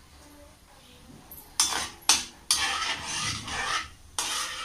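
Slotted metal spoon scraping and clattering against a metal kadai while stirring chana dal and cumin seeds frying in hot oil. Two sharp scrapes come about a second and a half in, then a longer run of stirring, and one more scrape near the end.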